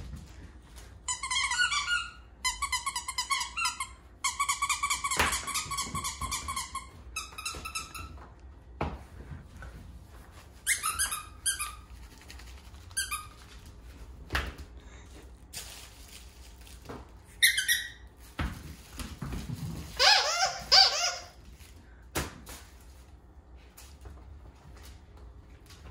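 Squeaky dog toys being chewed by a dachshund puppy: repeated bursts of high, rapidly pulsing squeaks, the longest running for a few seconds about five seconds in, with short knocks in the gaps between them.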